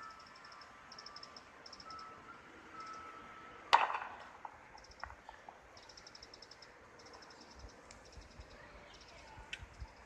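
Quiet open-air ambience after the chime has ended: repeated short, high-pitched trilled chirps from small creatures, a few times each second in bursts. One sharp knock stands out a little before the midpoint.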